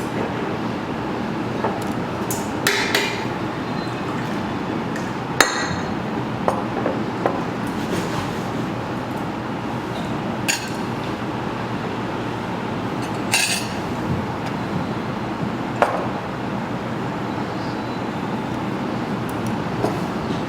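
Steady rumbling background noise with scattered sharp clinks and knocks, about half a dozen spread through it.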